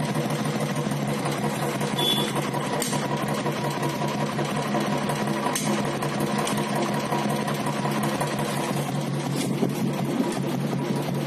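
Royal Enfield Twinspark 350 single-cylinder engine idling steadily with a mechanical clatter. The host takes the noise for decompressor and tappet sound with a slight hum, pointing to poor or incompletely drained engine oil and an untuned carburettor.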